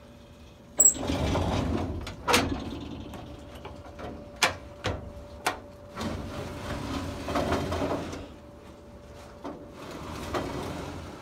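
Metal file-cabinet drawers sliding on their runners, with scraping and rumbling runs and several sharp metallic clanks and knocks, the loudest about a second in.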